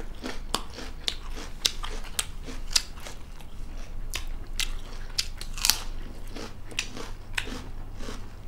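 Crisp raw cucumber stick being bitten and chewed close to the microphone: a run of irregular crunches, several a second.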